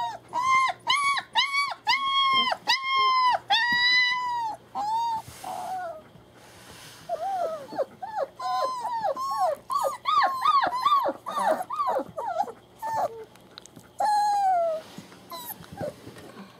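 About three-week-old German Shepherd puppies crying: a regular string of high whines, about three a second, then a quieter gap, then quicker, shorter cries and one longer whine near the end.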